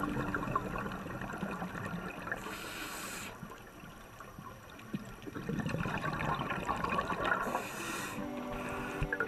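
Underwater water noise: a bubbling, crackling hiss with two brief louder swells of hiss, about two and a half seconds in and again near the end. Soft music notes come back in the last second or so.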